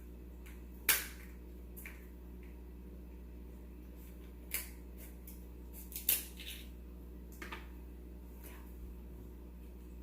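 Crab leg shells being snapped and cracked open by hand, a handful of sharp cracks a few seconds apart, the loudest about a second in and about six seconds in.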